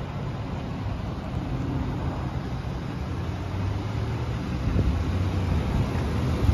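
Ford E-150 cargo van's engine idling steadily with a low hum, growing a little louder toward the end as the open engine bay comes close.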